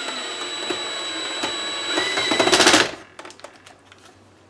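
A small electric motor whirs steadily for about three seconds, grows louder near the end, then stops abruptly, followed by a few faint clicks.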